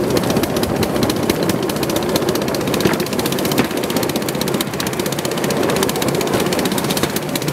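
Bamboo train (norry) running along the rails: its engine runs steadily under a rapid, continuous clatter of the platform and wheels over an old track that had gone unused for years.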